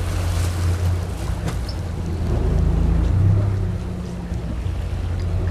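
Fishing boat's engine running with a steady low drone, under wind on the microphone and the wash of the sea.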